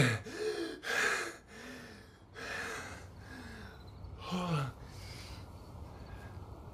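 A man's ragged, distressed gasps and breaths, several carrying a short voiced moan that falls in pitch; the loudest comes about four and a half seconds in.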